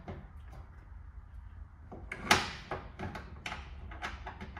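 A wooden cutting board extension being fitted onto a trailer's metal kitchen counter: a sharp knock about two seconds in, then a few lighter knocks and clicks as it is set in place.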